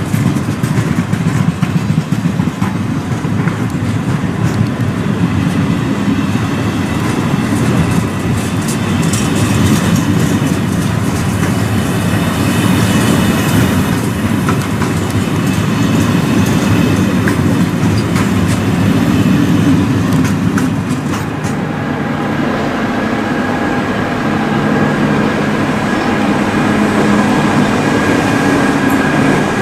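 Freight train rolling past: a steady, loud rumble of wagon wheels on the rails, with scattered faint clicks. About two-thirds of the way through, several steady tones come in above the rumble.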